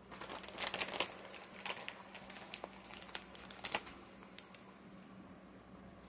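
Plastic bag of shredded cheese crinkling as it is handled and the cheese is shaken out: a quick run of sharp crackles that thins out after about four seconds, over a faint steady hum.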